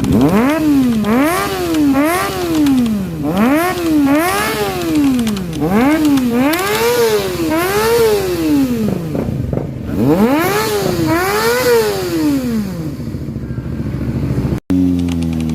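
Kawasaki ZX25R's inline-four engine revved in a quick run of throttle blips through an aftermarket exhaust, the pitch climbing and falling back about ten times.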